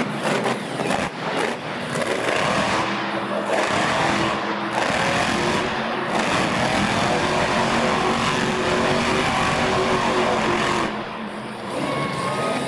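Monster truck engine revving hard, its pitch rising and falling with the throttle, with a few sharp knocks in the first second or so as the truck lands a jump. The revs ease off about eleven seconds in.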